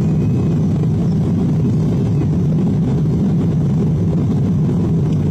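Steady low rumble of an airliner cabin in cruise flight, the engine and airflow noise heard from inside at a window seat.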